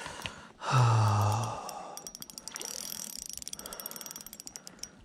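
A man's loud voiced sigh, lasting just under a second, about a second in. Faint rapid ticking follows it.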